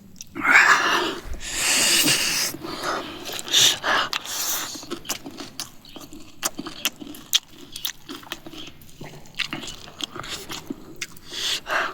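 Someone eating chatpate, a crunchy puffed-rice snack: loud hissing bursts through the first five seconds, then a run of sharp, irregular crunching clicks from biting and chewing.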